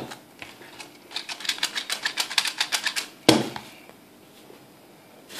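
Rapid, even clicking from a plastic Minion Happy Meal toy's mechanism, about eight clicks a second for roughly two seconds. A single sharp knock follows as a toy is set down on the tabletop.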